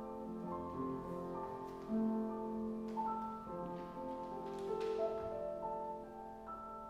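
Piano playing slow, sustained chords in the closing bars of a song's accompaniment, growing gradually softer.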